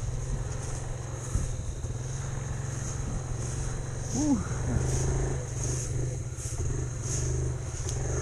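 Off-road vehicle's engine running steadily at low speed.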